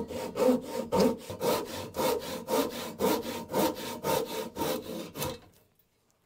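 Japanese pull saw cutting across a timber beam by hand, in even strokes about two a second. The strokes stop about five and a half seconds in as the cut goes through.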